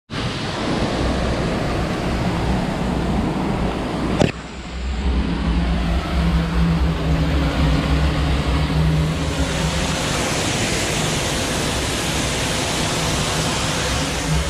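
Waterfall pouring into a rock pool, heard from inside a rock hollow beside it: a steady rushing with a deep rumble. A click about four seconds in is followed by a stronger low rumble.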